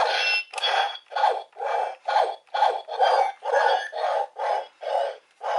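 Power Rangers Beast Morphers toy playing an electronic sound effect through its small speaker: a rhythmic series of short, scratchy pulses, about two a second.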